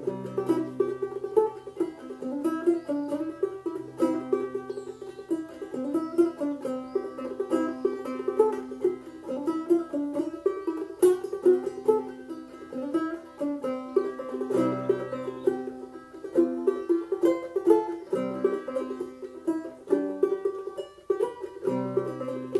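Open-back banjo with nylon strings, tuned to double C, played clawhammer style: a steady stream of plucked melody notes over low notes that come back every few seconds.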